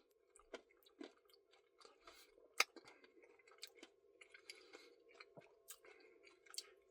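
Faint chewing of a mouthful of Reese's Pieces cookie dough Blizzard, with soft scattered mouth clicks and one sharper click about two and a half seconds in.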